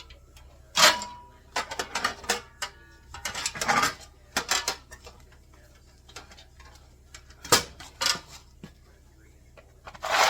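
Irregular metallic clicks and clinks, a few sharp taps with a short ring, from Cleco fasteners and small metal parts being handled and fitted against a sheet-metal seat panel. The loudest taps come about a second in and again near seven and a half seconds.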